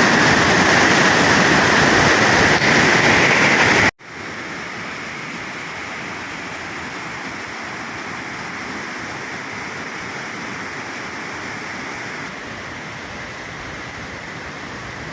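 Ditumabo Mother Falls pouring as a steady rush of water. About four seconds in the sound cuts off abruptly and resumes as a quieter, steady rush.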